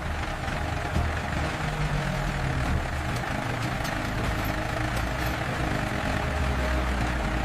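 Heavy vehicle engine, like a truck's, idling with a steady low rumble.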